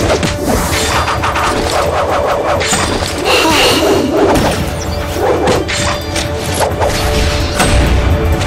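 Battle sound effects from a puppet drama soundtrack: repeated whooshes, crashes and impacts laid over dramatic background music.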